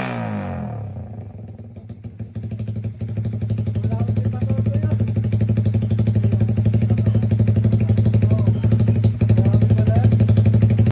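Suzuki Raider Fi single-cylinder motorcycle engine breathing through a Jecspeed 'super open' free-flowing exhaust. The revs fall back at the start, then it idles steadily with a loud, even exhaust beat.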